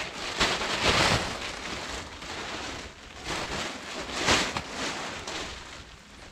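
Plastic tarpaulin rustling and crackling as it is unfolded and flapped over a wooden frame, with the loudest swishes about a second in and again about four seconds in.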